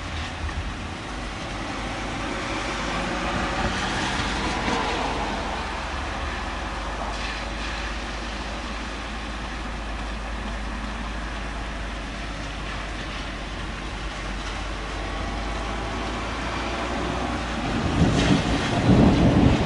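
Outdoor city ambience during a thunderstorm: a steady low rumble and hiss that swells a few seconds in, then turns louder and rougher near the end.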